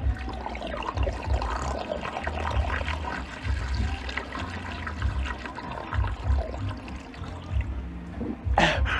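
A litre bottle of sparkling water being chugged after being swirled into a vortex, the water gurgling and draining from the bottle. Background music with a steady bass beat plays along.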